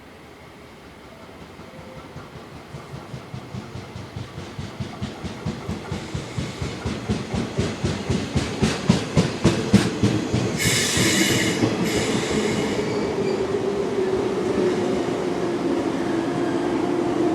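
JR 183 series six-car electric train running into the station: its wheels clack regularly over the rail joints, growing louder as it nears. About ten seconds in comes a short burst of high hissing, then a steady rumble with a low hum as the cars pass along the platform.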